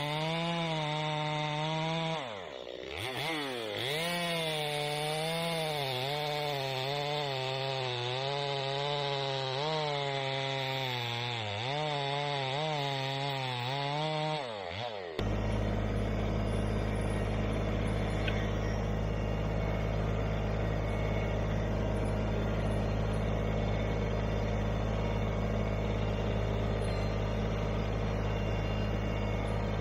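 Chainsaw cutting through a firewood pole, its pitch rising and falling as it loads up in the cut and revs back, with a sharp dip about two to three seconds in. About halfway through it gives way abruptly to the steady low running of an LS5125 compact tractor's diesel engine.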